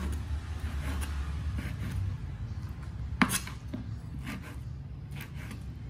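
Cleaver slicing through fried tofu and knocking on a plastic cutting board: a string of uneven chopping taps, with one sharper knock about three seconds in.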